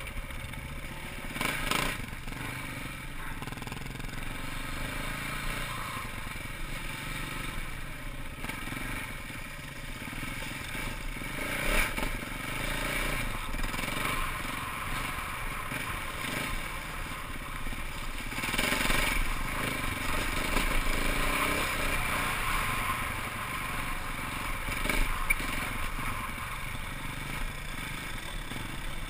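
KTM dirt bike engine running as the bike is ridden along a rough dirt trail, heard from a helmet-mounted camera, with the rattle of the ride over the ground.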